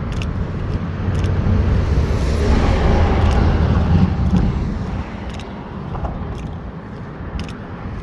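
A vehicle passes on the bridge roadway: a rumble of engine and tyres that swells over the first few seconds and fades away after about five seconds. Footsteps click about once a second throughout.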